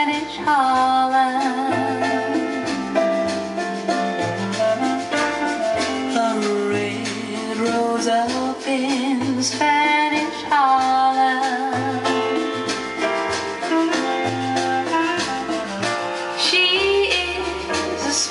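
Recorded music with a singer, wavering sung notes over a bass line that steps from note to note, played back through Sonus Faber Concertino speakers driven by a Classé Audio Twenty-Five power amplifier.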